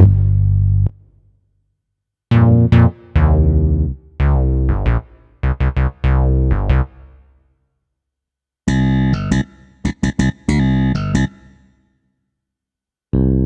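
Yamaha SHS-500 Sonogenic keytar playing short phrases of notes in its built-in keyboard and synth voices, with added reverb. Each phrase is followed by a silent gap of a second or two; the second phrase, about eight seconds in, is brighter than the first.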